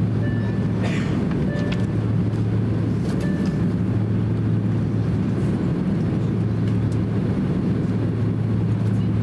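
Steady cabin noise of a Boeing 767-300 taxiing, its jet engines near idle: an even low hum with a rush of air over it. A few faint short clicks and tones come in the first few seconds.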